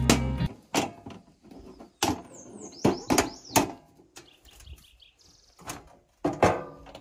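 Metal latches and lid of a two-burner propane camp stove clicking and clunking on a wooden picnic table as it is unlatched and opened, a handful of separate sharp knocks spread through. Birds chirp briefly about two to three seconds in.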